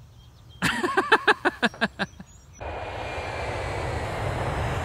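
Intro sound effect under an animated logo: a short run of rapid pitched pulses, then a steady rushing noise like wind or a passing jet that cuts off suddenly.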